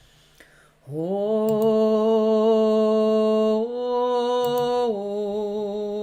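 A woman's voice toning: a long, slow sung tone in the low range of her voice, starting about a second in and held steady, then stepping slightly up in pitch and back down.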